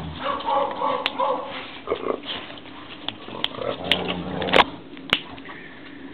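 Dogs barking in short calls, with a few sharp clicks in between.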